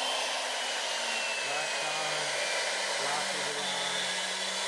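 CNC router spindle running at speed just after start-up: a steady high hiss, with a faint whine that eases down in pitch over the first two or three seconds.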